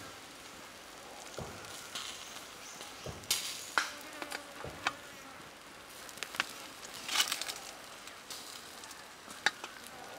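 Bamboo vegetable skewers being set down and shifted on a wire grill grate over charcoal: scattered light clicks and knocks over a faint steady hiss.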